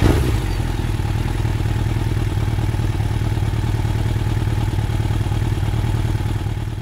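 A motorcycle engine fires up right at the start and then idles steadily, fading out near the end.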